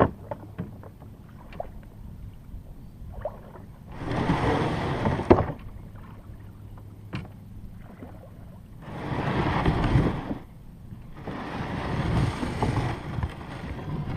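Wind and water noise around a kayak on open water, swelling three times, with a few small knocks between.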